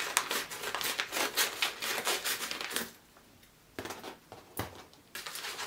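A small mail package crinkling and rustling as it is cut and pulled open with scissors. There is a dense run of crackles for about three seconds, a short pause, then scattered crinkles.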